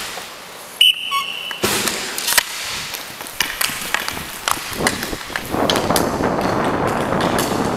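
A short high whistle blast about a second in, then the sounds of roller hockey play: inline skate wheels rolling on the rink floor and several sharp clacks of sticks and puck, the rolling noise growing louder near the end.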